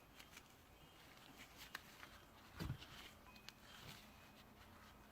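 Near silence with a few faint clicks and one soft knock about two and a half seconds in: the handling of 3D-printed plastic filter-box parts.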